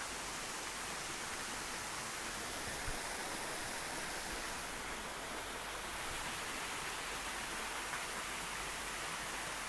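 Steady, even background hiss with no speech or other distinct sound; a single faint tick about three seconds in.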